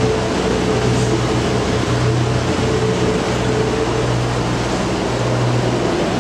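A boat engine running steadily inside a brick-lined canal tunnel: a continuous mechanical drone with a low hum.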